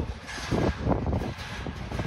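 Loaded freight train cars rolling past: a steady rumble of wheels on rail, with a run of clanks and knocks about half a second to a second in.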